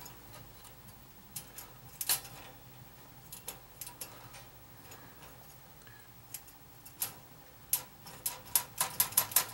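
A wooden stick tapping and poking at a toaster's patched nichrome heating element: scattered light clicks, then a quick run of taps near the end. The tapping tests whether the repaired joint holds, and it holds solid.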